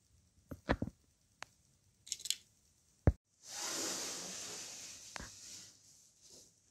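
A few light clicks and knocks of handling, then a wooden specimen drawer sliding out of a metal storage cabinet: a scraping slide of about two seconds that fades, with a small knock partway through.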